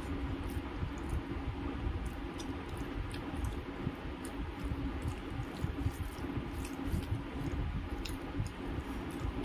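Wet squishing of fingers kneading rice and potato-paneer curry on a steel plate, mixed with chewing and scattered small wet clicks, over a steady low hum.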